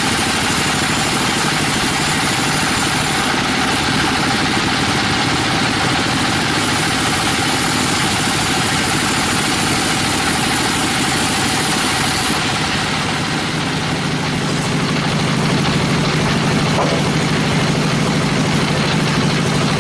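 A 42-inch bandsaw cutting through teak wood, a steady, dense machine noise. About two-thirds through, the sound changes, with a steady low hum coming up.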